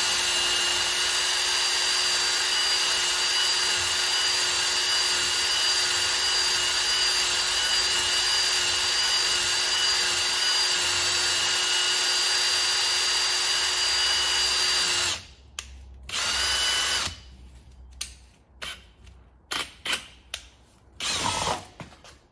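Electric drill spinning a mixing paddle in a cup of catalysed gel coat, running at a steady speed with a constant whine for about fifteen seconds, then stopping and being restarted in a few short bursts.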